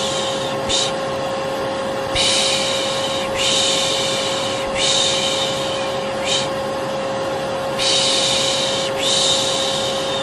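Vacuum cleaner running with a steady hum, overlaid by a person's repeated 'shh' shushing. The shushes are mostly long, about a second each, with a couple of short ones between them, used to soothe a baby to sleep.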